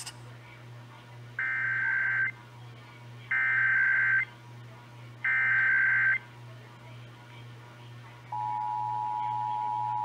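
Emergency Alert System SAME header: three bursts of digital data tones, each about a second long and about two seconds apart, coming over an FM radio. About eight seconds in, the steady two-tone EAS attention signal (853 and 960 Hz together) starts, marking the opening of a required monthly test.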